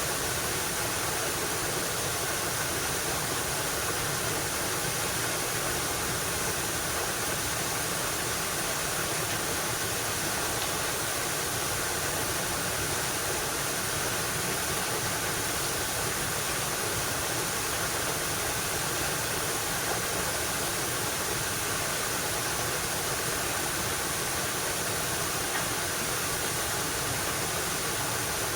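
Mountain river rushing steadily over rocks, a constant even roar of flowing water with no breaks.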